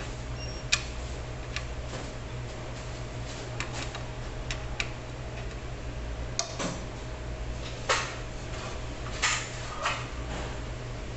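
Scattered light clicks and a few short scrapes of hands handling the metal blade and guard of a cheese slicer, over a steady low hum.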